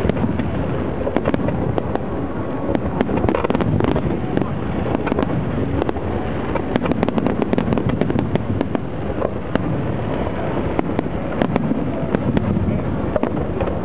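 Aerial fireworks going off: a continuous rumble of bangs with many sharp cracks in quick succession.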